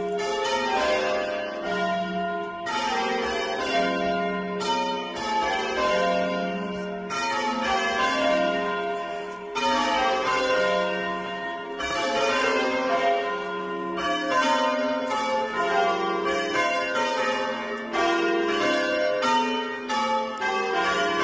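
A ring of church bells being change-rung, the bells struck one after another in a continuous sequence. The deepest bell sounds about every two seconds.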